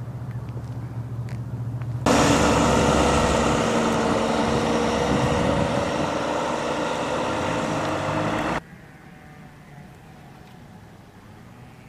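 A motor vehicle running close by: a loud engine-and-road noise with a slowly falling hum that starts and stops abruptly, set between stretches of a quieter low hum and, near the end, faint outdoor background.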